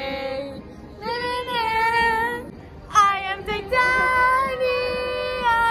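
Teenage girls singing together in long, held notes, broken briefly by a sharp vocal outburst about three seconds in.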